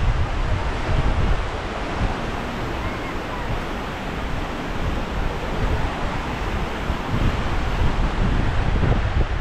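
Ocean surf washing onto a sandy beach, a steady noise, with wind buffeting the microphone in uneven low rumbles.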